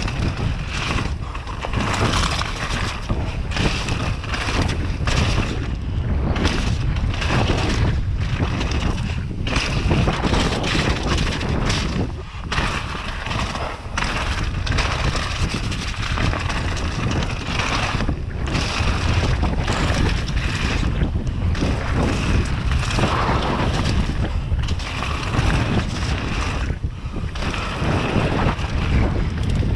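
Wind buffeting a GoPro action camera's microphone as a mountain bike rides fast downhill, with its tyres crunching over a loose gravel and shale trail. The noise is loud and unbroken, fluttering irregularly with the gusts and bumps.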